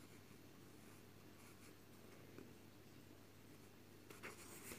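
Near silence: faint rustling of fingers working crochet yarn through the stitches, a little stronger near the end, over a low steady hum.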